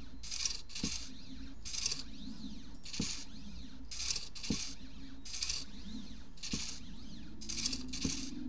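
Small belt-driven pen plotter (midTbot, ESP32-controlled) drawing short strokes: its motors buzz in short bursts about once a second, some in quick pairs, each rising and falling in pitch as the carriage speeds up and slows. Soft ticks come between some moves, with a low hum while it is still.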